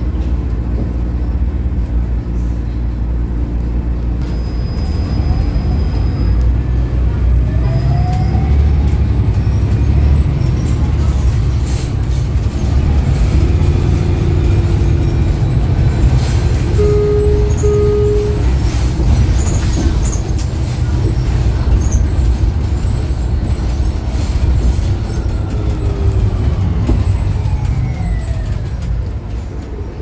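Cabin noise of a New Flyer XDE60 articulated diesel-electric hybrid bus on the move: a steady low rumble from the drivetrain and road, with the BAE hybrid drive's electric motor whine rising in pitch as it speeds up and falling again near the end as it slows. About halfway through come two short beeps.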